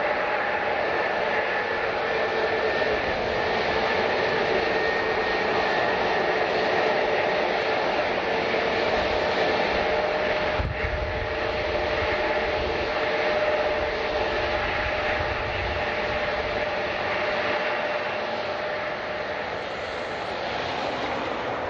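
Jet airliner engines running: a steady, loud noise with a few held whining tones over it. A low rumble swells about halfway through, and the sound eases a little near the end.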